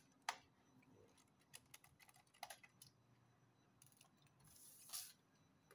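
Scattered small clicks of a screwdriver working the screws of a laptop's plastic bottom case, with a brief rustling scrape about five seconds in.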